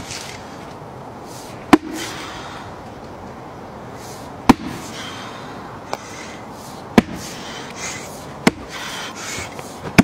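An axe striking a large, knotty log round, five hard chops about every two seconds, each a sharp crack, with a fainter knock between the second and third.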